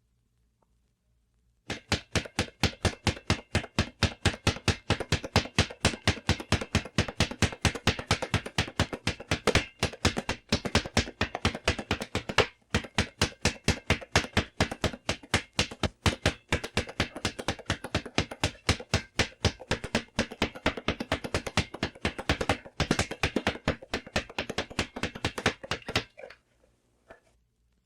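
Punching bag being hit in a rapid, steady rhythm of sharp strikes, several a second, with a couple of brief breaks, stopping shortly before the end.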